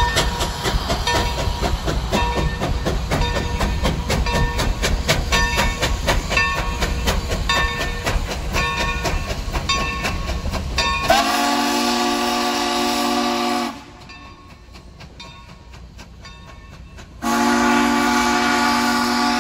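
Steam train running by with a fast rhythmic clatter for about eleven seconds. Then the locomotive's steam whistle sounds two long blasts, a chord of several notes sounding together, the second starting near the end.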